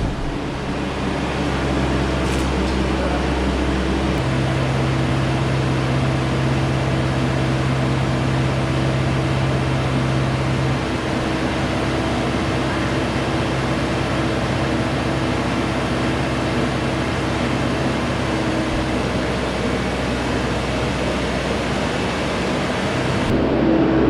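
Steady mechanical hum of a machine running, its tone shifting abruptly about four seconds in and again near eleven seconds.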